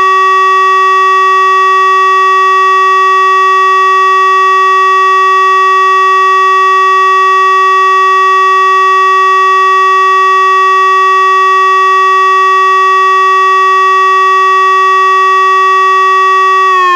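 Tesla UEAJ electronic warning siren sounding the Czech siren-test signal ('Zkouška sirén'): one loud, steady tone held at a single pitch. In the last moment the tone starts to slide down in pitch.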